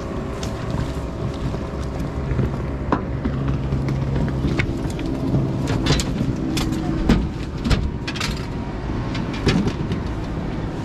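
A boat motor running steadily under a series of sharp knocks and clatter as a landing net holding a spring Chinook salmon is swung aboard and set down on the boat's metal diamond-plate deck.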